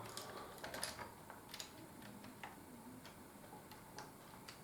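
Faint, irregular clicks and taps of plastic building-brick parts being handled and pushed together.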